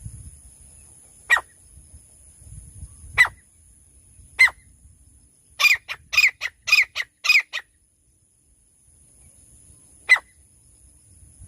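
Francolin (teetar) calling: short, sharp calls, single ones a second or two apart, then a quick run of about six, and one more near the end.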